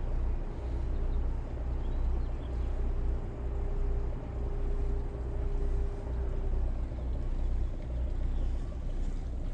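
Twin diesel engines of a Bayliner 4788 motor yacht running at low docking speed, a steady low rumble. A faint thin whine rides on it and fades out about two-thirds of the way through.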